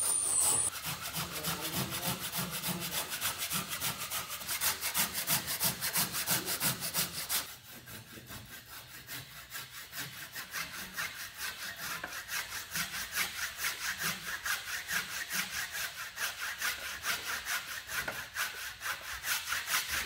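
Hand saw cutting through a wooden stanchion of the bulwark in quick, even strokes, trimming it to length. About seven and a half seconds in the sawing gets quieter and carries on.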